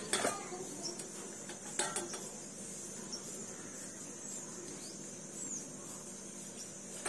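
Light knocks of steel kitchenware, one just after the start and another about two seconds in, as dough is handled over a steel plate, with faint steady background noise between.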